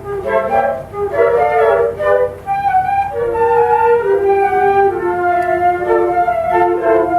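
Flute ensemble playing a choro melody in several parts: quick, short notes in the first two seconds, then longer held notes moving in harmony.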